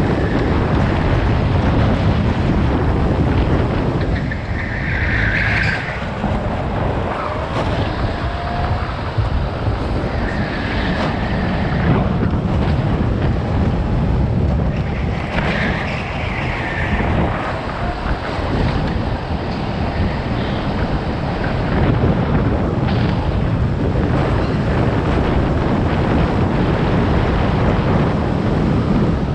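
Go-kart engine running at racing speed, heard from the kart itself under heavy wind noise on the microphone. A few brief higher-pitched sounds stand out over it, about four times.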